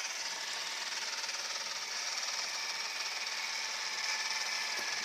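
Robot vacuum cleaner running over electrical cables on the floor: a steady, high whirring hiss from its motors and brushes.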